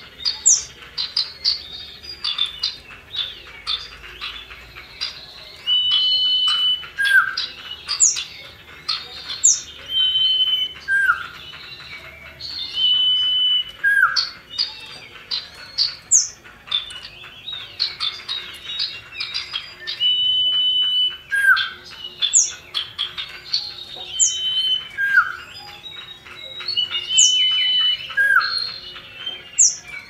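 Common iora (cipoh) calling: phrases of sharp downward-sliding whistles, short held notes and fast twittering, repeated every few seconds.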